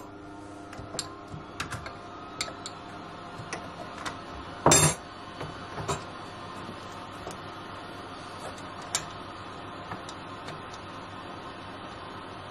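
Scattered light clicks and knocks of a rubber-covered airless hose and its metal end fitting being handled and screwed onto an airless paint sprayer's outlet, with one louder clatter about five seconds in. After that, only a faint steady hum of room tone with a single click.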